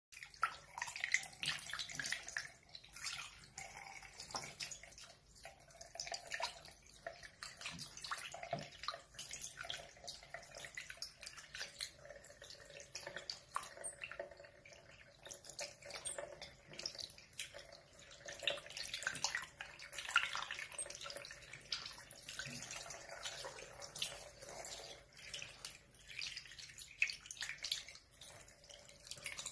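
Bathroom sink tap running in a thin stream, water splashing and dripping irregularly as it pours over a small wet animal and a hand into the basin.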